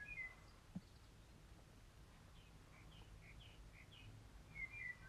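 Near silence with faint bird chirps: a short series of quick high chirps in the middle, and more near the end.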